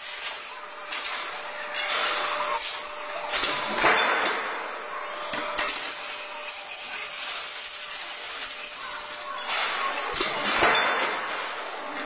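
Metal stamping press at work: irregular bursts of hissing compressed air, the longest near the end, over a faint steady hum.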